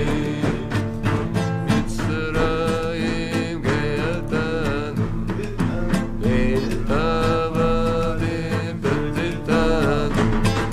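Male voices singing a song together to a strummed acoustic guitar.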